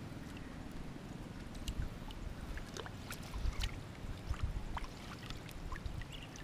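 Shallow paddy water sloshing and dripping as hands work a fishing net in it, with scattered small splashes and drips over a steady low rumble.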